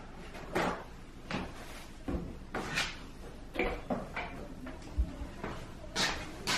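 Kitchen cabinet doors and items being handled on the counter: a string of separate knocks and clacks, about one every second.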